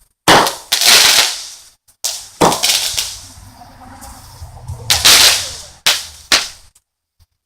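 Consumer fireworks going off: about seven loud, sharp bangs in irregular succession, each trailing off in a rolling echo, before the sound stops abruptly near the end.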